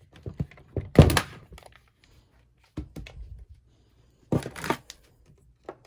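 A few knocks and short rustles of objects being handled. The loudest knock comes about a second in, and smaller clusters follow near the middle and later on.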